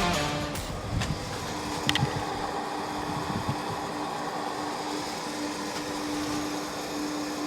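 Steady road and engine noise inside a moving truck's cabin, with a constant hum and a few faint clicks about one and two seconds in.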